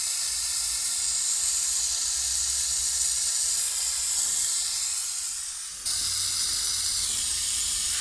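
Oxygen-fed gas torch hissing steadily as it heats an aluminium car air-conditioning condenser for brazing with filler rod. The hiss eases off, then comes back abruptly at full strength about six seconds in.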